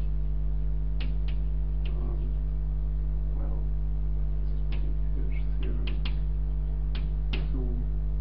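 Steady low electrical mains hum, the loudest sound, with short irregular clicks and scratches of chalk on a blackboard as words are written, about a dozen strokes.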